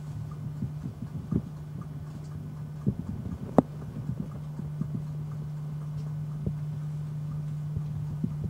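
Steady low hum of a tugboat's machinery heard inside the wheelhouse, with scattered light knocks and clicks and one sharper click about three and a half seconds in.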